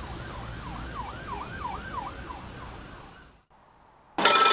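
A faint emergency-vehicle siren wails rapidly up and down, about three sweeps a second, over outdoor background noise, fading out about three seconds in. Near the end a desk telephone starts ringing loudly.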